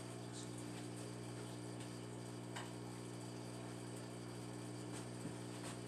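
Steady low electrical hum with several evenly spaced overtones, with a few faint ticks.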